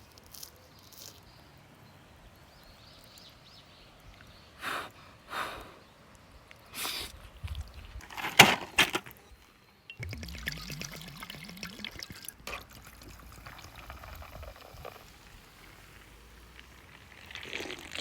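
A few short knocks and scrapes of handling, the loudest about eight and a half seconds in. After a brief break, a wood campfire crackles steadily with many small pops.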